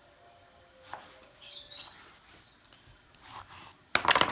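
Chef's knife on a wooden cutting board while dicing a tomato: a single knock about a second in, then a quick clatter of knife strikes and scraping near the end as the diced tomato is gathered. Faint, brief high chirps in between.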